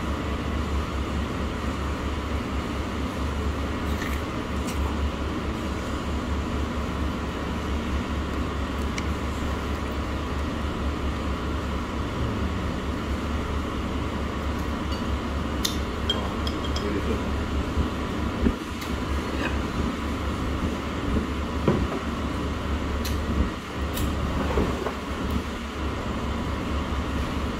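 Steady low background rumble and hum, with a few short faint clicks scattered through it.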